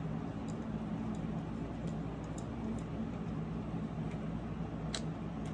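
A steady low hum with a few faint, light ticks as a curling iron is worked through hair, the loudest tick about five seconds in.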